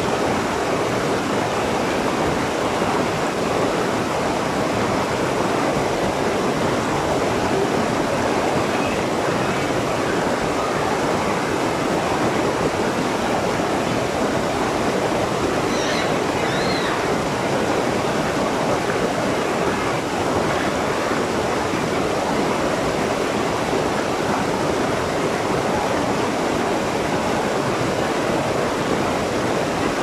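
Steady rushing of a small waterfall pouring over boulders in a rocky forest stream.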